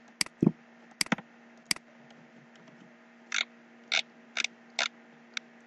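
Computer mouse clicking: a few sharp clicks in the first two seconds, then four softer clicks about half a second apart.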